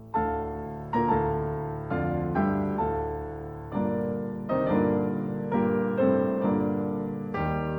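Background piano music: slow, gentle notes and chords struck about once or twice a second, each fading away.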